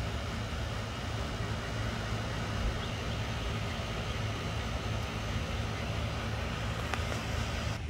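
Steady low rumble with a hiss across the range, typical of outdoor background noise such as wind on the microphone or distant traffic, with a faint tick about seven seconds in.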